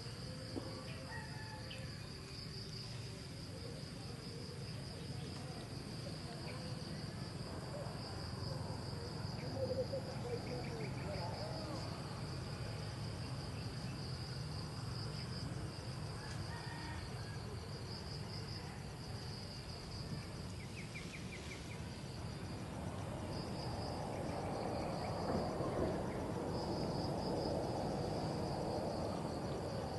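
Steady high-pitched insect chorus, a buzzing trill that pulses in stretches, over a low background rumble. A louder rustling, crackling noise builds in the last several seconds.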